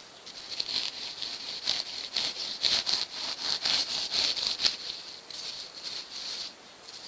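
A handsaw sawing through a sheet of expanded polystyrene foam in quick rasping strokes, about two to three a second. The strokes stop about six and a half seconds in.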